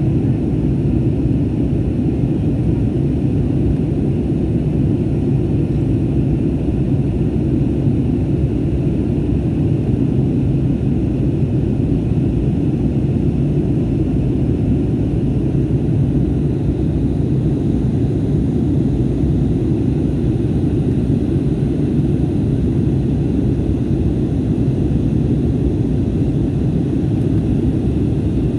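Passenger airplane's engines and airflow: a steady low rumble that holds the same level and pitch throughout.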